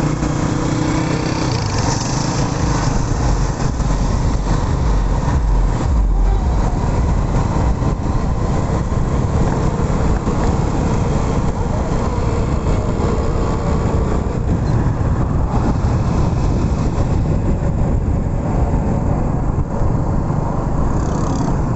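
Vehicle engine running with road and wind noise, heard from a moving vehicle. The noise is loud and steady, with a low engine hum that is strongest for the first couple of seconds.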